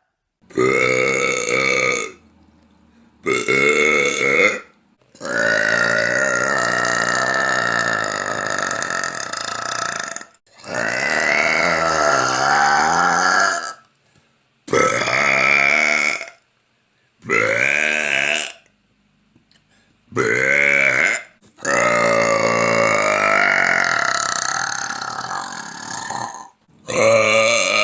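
A woman burping loudly again and again: about nine long, drawn-out burps with short pauses between, two of them lasting around five seconds. The pitch of each wavers up and down.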